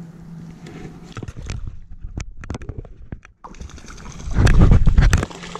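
Clicks and light knocks of fly line and rod being handled, then near the end a loud rough rush with splashing, about a second long, as the rod is swept up and a brown trout is hooked at the surface.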